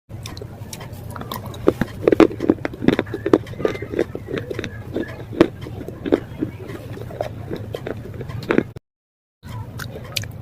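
Slate pieces being bitten and chewed: a quick, uneven run of sharp cracks and crunches, with a brief total drop-out of sound near the end.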